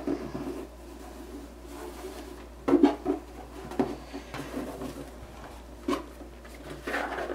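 Hands untying a ribbon from a rigid cardboard gift box: faint rustling, a few sharp knocks against the box about three seconds in and again near four and six seconds, and a short scraping rub near the end.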